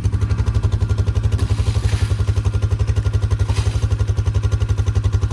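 A small engine running steadily with a fast, even pulse that does not change.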